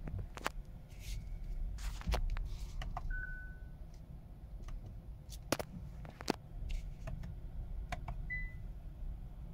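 Two short dashboard warning beeps in an electric car's cabin: a lower one about three seconds in, at the moment the display warns that the regeneration paddles are not available, and a higher one near the end. Under them runs a low cabin rumble as the car creeps at walking pace, with several sharp clicks.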